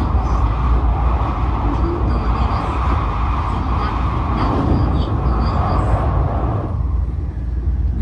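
Tokaido Shinkansen train running at speed, heard from inside the passenger cabin: a steady, loud rumble of wheels and rushing air while crossing a river bridge. The upper part of the rumble drops away suddenly about seven seconds in, as the train comes off the bridge, leaving a lower rumble.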